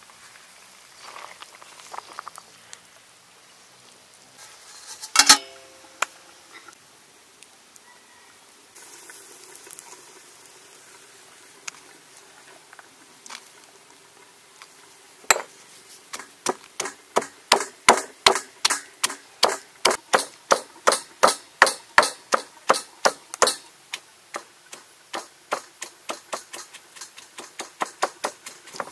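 Stone pestle pounding garlic, shallots and chilli in a stone mortar: a run of sharp, evenly spaced strikes, about two to three a second, starting about halfway through with a short break near the end. Earlier there are a few light clatters and one sharp knock about five seconds in.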